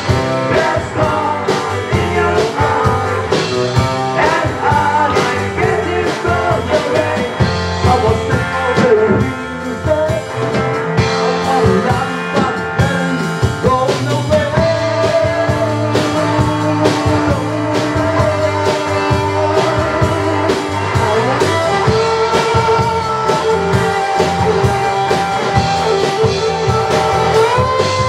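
Live rock band playing: electric guitars over a drum kit, with long held, bending notes running above the beat.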